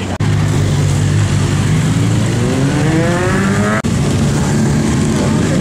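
Motorcycle engines running low and steady as bikes ride past slowly. From about two seconds in, one engine revs up with its pitch rising steadily, and the sound cuts off abruptly just before four seconds.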